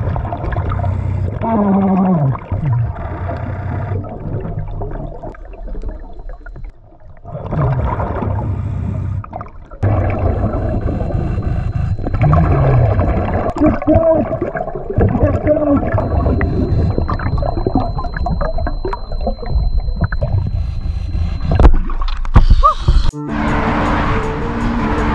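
Air from a BLU3 Nomad surface-supplied dive regulator bubbling and rushing underwater, with gurgling, gliding sounds. The air flow pulses, the system's signal that the dive should end. Near the end the sound cuts to background music.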